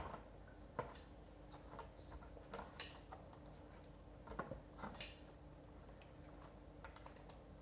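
Faint, scattered clicks and light knocks of a blender's plastic container and parts being handled and fitted together, over a faint steady hum.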